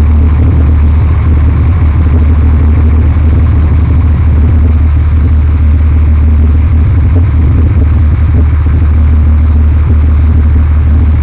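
A boat's engine running steadily: a loud, even low drone.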